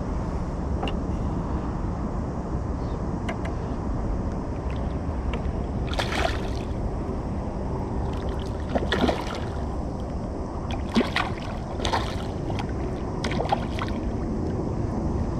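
A hooked herabuna (Japanese crucian carp) being played to the net, splashing and sloshing at the surface several times from about six seconds in, over a steady low rumble.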